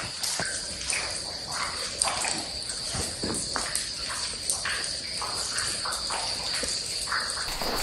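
Insects chirring in one steady high-pitched tone, with scattered footsteps and scuffs.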